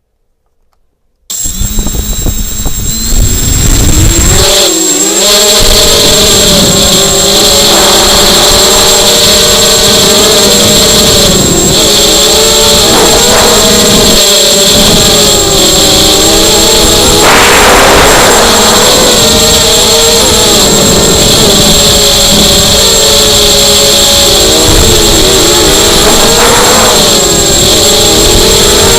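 ZMR250 racing quadcopter's motors and propellers buzzing loudly, starting suddenly about a second in, the pitch rising and falling as the throttle changes through the flight.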